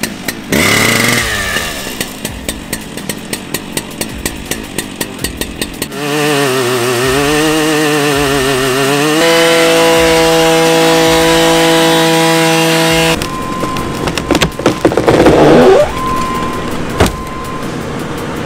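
Husqvarna chainsaw just started, idling with a short rev. It then runs up to full throttle, wavering and then holding a steady high note as it cuts into a large oak trunk. In the last few seconds there is a run of loud, irregular knocks, the loudest part.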